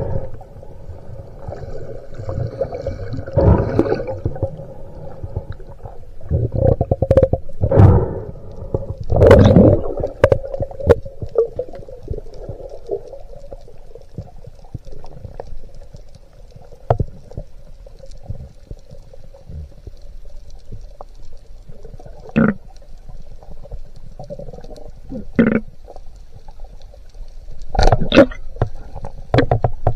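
Underwater sound picked up by a camera during a spearfishing dive: gushes of rushing water in the first ten seconds, then scattered sharp clicks and knocks, over a steady faint hum.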